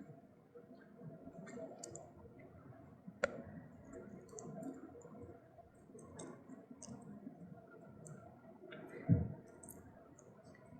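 A dog chewing and crunching Pepero biscuit sticks: scattered small crisp clicks, a sharper snap about three seconds in and a low thump near the end.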